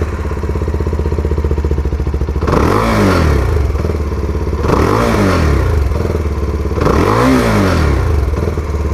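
CFMOTO 300SR Sport's single-cylinder engine heard at the exhaust, idling steadily and then blipped three times, each rev rising in pitch and dropping back to idle.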